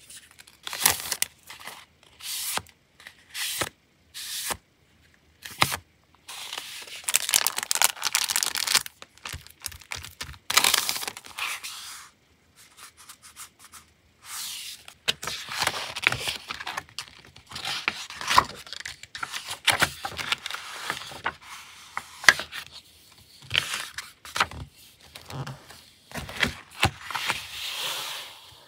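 Sheets of printed paper and card stock being handled and shuffled: irregular rustling, sliding and light tapping in short bursts with brief pauses between.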